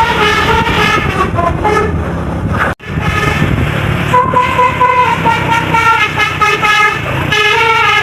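A bus's Basuri telolet musical air horn playing a tune of held notes that step up and down, over low engine rumble. The sound breaks off sharply about three seconds in, and another horn tune picks up.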